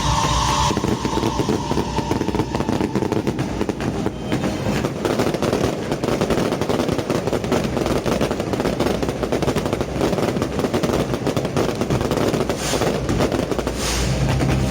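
Fireworks going off in rapid succession: a dense, continuous crackle of bangs with no let-up, loudest in the lower and middle range.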